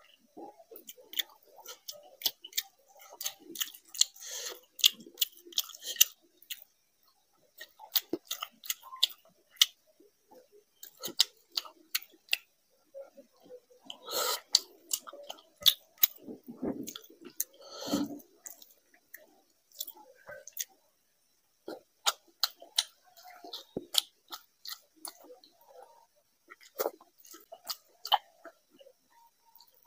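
Close-miked eating of hand-mixed rice and fish curry: wet chewing with many sharp mouth clicks and lip smacks, and a few louder, longer mouthfuls about 4, 14 and 18 seconds in.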